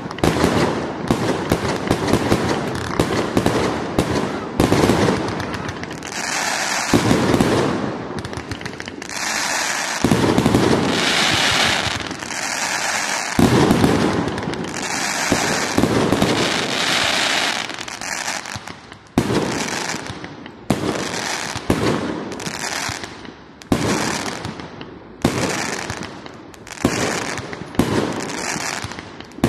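Fireworks display: a rapid, continuous run of shell launches and bursts, bang after bang, with longer stretches of hiss from about six to eighteen seconds in.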